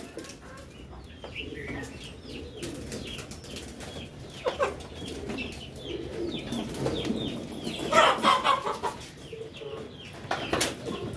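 Chickens clucking in a run of short calls, loudest about eight seconds in.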